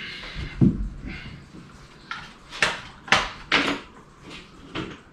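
Half a dozen irregular knocks and clunks from tools and parts being handled and set down around a boat's engine bay.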